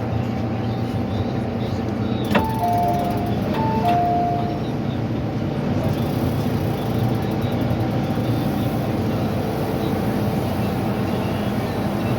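MTR M-Train interior sound while running between stations: steady rumble of wheels and traction equipment, with a steady hum. About two seconds in, a click and a short two-note descending chime sound, and the chime comes again about a second and a half later.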